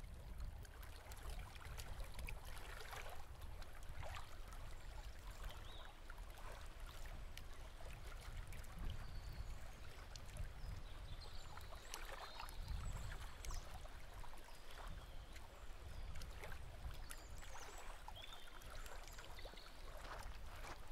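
Small waves lapping and washing onto a sandy beach, a steady water wash that swells and ebbs irregularly, with a low rumble underneath.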